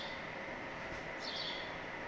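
A small bird gives a quick pair of short, high, downward-sliding chirps about a second in, over a steady background hiss and hum.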